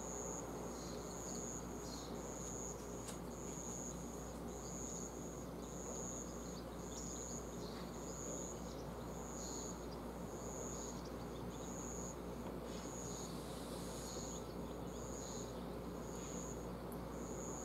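An insect chirping in a steady rhythm: short high-pitched chirps repeating about every 0.6 seconds, over a steady low background hiss.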